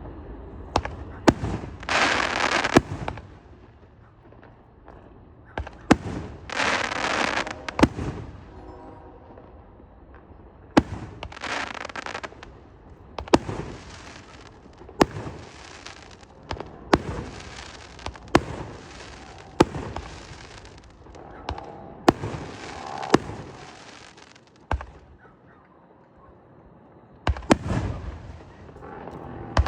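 Fireworks cake firing its shots: a string of sharp bangs, roughly one every one to two seconds, several of them followed by about a second of hissing as the effects burst.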